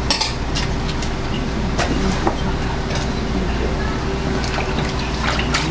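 A kitchen knife cutting and tapping on a cutting board while filleting a tiger pufferfish, with several sharp clicks scattered through. A steady low mechanical hum runs underneath.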